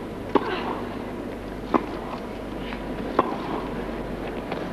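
Tennis ball struck back and forth by rackets in a rally: four sharp hits about a second and a half apart, with fainter knocks between them, over a steady arena hum.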